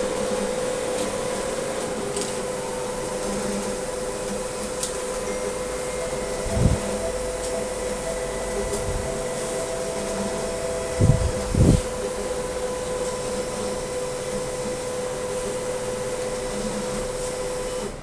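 Cash deposit machine running with a steady mechanical hum and whine, with a few dull thumps in the middle; the hum cuts off suddenly at the end.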